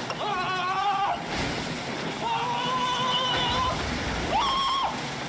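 A man's high, drawn-out screams of being electrocuted: three long cries, each sliding up and then held on one note, with a rushing noise between the first two.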